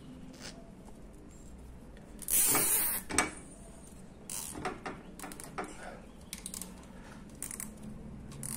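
A thick plastic zip tie being cinched tight around a motor cable. About two seconds in there is a loud rasp as the tie is pulled through its lock, then a sharp click, then a string of irregular small clicks and ticks as it is worked tighter and handled.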